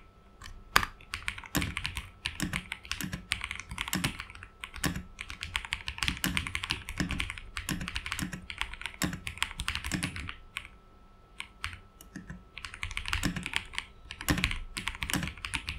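Typing test on an Aula F68 65% gasket-mount mechanical keyboard: rapid, continuous keystrokes on its heavily lubed Leobog switches, which feel linear rather than tactile, with a pause of about two seconds past the middle. A fan runs faintly behind.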